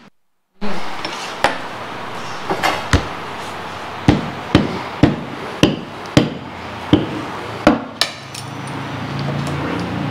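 Wooden rolling pin knocking on a tabletop while rolling out roti dough: about a dozen sharp knocks, irregularly spaced. A steady low hum swells in over the last two seconds.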